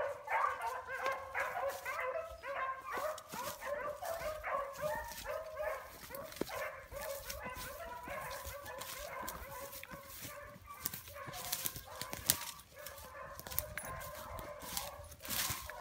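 A pack of rabbit hounds baying in chorus as they run a rabbit's track, many overlapping voices that thin out after about eight seconds. Brush crackles close by in the second half.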